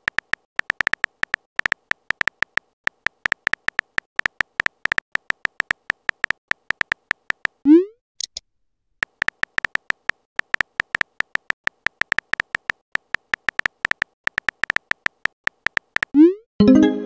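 Simulated phone-keyboard typing sound effect of a texting-story app: rapid, irregular short clicks. About eight seconds in a short rising swoosh marks a message being sent, the clicking resumes a second later, and another swoosh and a brief louder tone come near the end.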